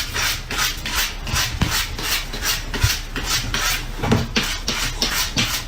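Rhythmic rasping strokes, about four a second, like something rough being scratched or scraped over and over.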